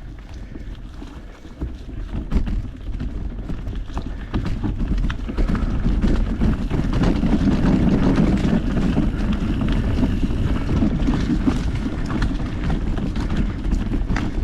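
Mountain bike riding along a dirt trail: wind buffeting the GoPro's microphone as a low rumble, with many short rattles and clicks from the tyres and bike over the ground. It grows louder over the first several seconds as speed builds, then holds steady.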